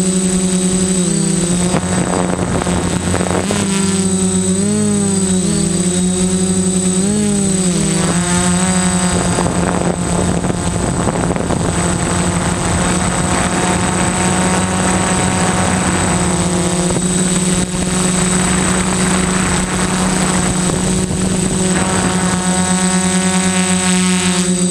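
Multirotor drone's electric motors and propellers whining steadily, heard up close from on board. The pitch wobbles up and down several times a few seconds in as the throttle changes, and a rougher rush of air mixes in through the middle before the whine settles again.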